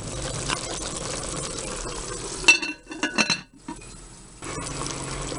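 Chicken pieces sizzling in liquid in a glass pot as a spoon stirs them. About two and a half and three seconds in come a few sharp glass clinks as the glass lid is set on the pot, and after a short quieter spell the steady sizzle goes on.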